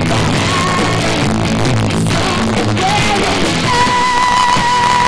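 Live rock band playing loud through a PA, with a woman singing over bass, guitar and drums. A long wavering held note comes in about three and a half seconds in.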